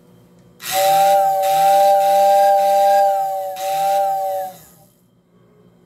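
Model train whistling tender's electric whistle: a small motor-driven fan blowing through the whistle chamber, giving a steady two-note whistle with airy hiss. It starts about half a second in, dips briefly near the end and stops after about four seconds.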